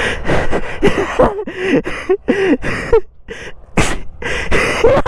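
A person panting hard close to the microphone: rapid, voiced, breathy gasps about three a second, with a short pause about three seconds in.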